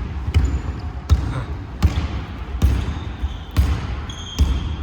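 Basketball being dribbled on a court, six evenly spaced bounces about 0.8 s apart, with a short high squeak near the end.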